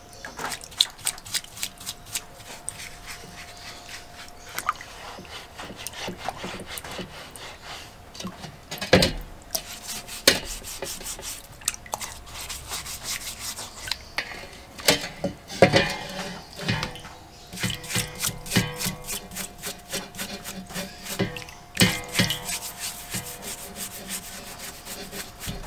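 Stiff-bristled brush scrubbing a rusty bench vise part in a basin of water: rapid back-and-forth rasping strokes, broken by a few louder knocks.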